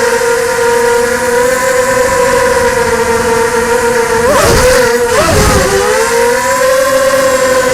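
ZMR 250 FPV quadcopter's electric motors and propellers whining at a steady pitch. About four seconds in, the pitch swoops up and down several times in quick succession as the throttle is worked hard through a manoeuvre, then settles back to a steady whine.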